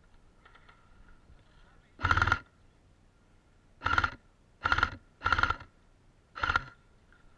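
AK-pattern airsoft rifle firing five short bursts, the first about two seconds in and the rest in quick succession over the next few seconds.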